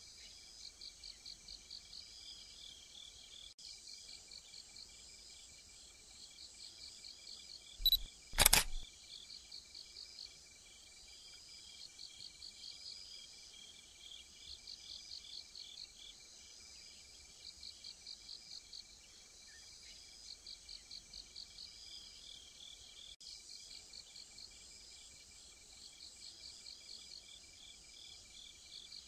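Insects chirping steadily in repeated trains of high, rapid pulses over a thin continuous high tone. Two sharp knocks come close together about eight seconds in and stand out as the loudest sounds.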